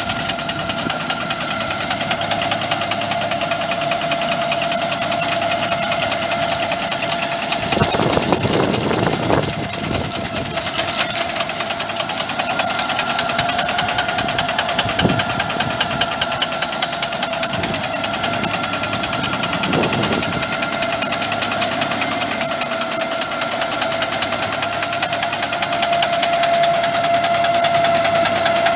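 Rigitrac SKH95 tractor engine running steadily under load with a steady high whine, driving a Mense RP 8L clearing shear on its boom as it cuts through shrubs. Louder crackling of branches being cut and broken comes about 8 to 9 seconds in, again around 15 seconds and around 20 seconds.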